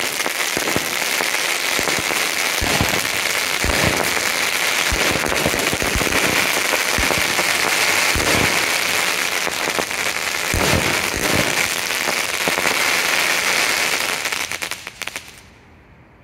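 Two Grucci Crackling Crossettes 200-gram fireworks cakes firing together: repeated launch thumps under a dense, continuous crackle from the splitting stars. The crackle thins to scattered pops and dies away about fifteen seconds in.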